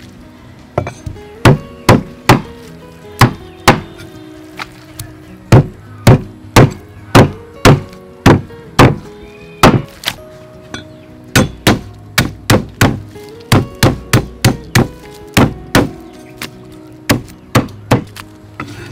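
Heavy chopping blows of a knife through cow's leg on a wooden chopping block: loud, sharp strikes about one or two a second in uneven runs. Background music plays under them.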